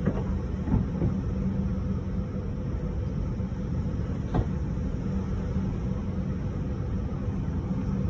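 Derecho wind and heavy rain blowing hard as a steady low rumble, with a constant low hum underneath and a few faint knocks.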